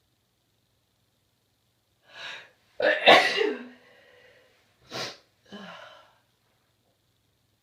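A person with a cold sneezing. A quick breath in about two seconds in, then one loud sneeze, followed by a short sharp burst and a softer breath.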